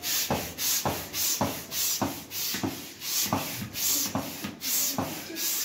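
Hand air pump worked in steady strokes, about two a second, each stroke a rush of air with a soft thump, pushing air through its hose into an inflatable paddling pool.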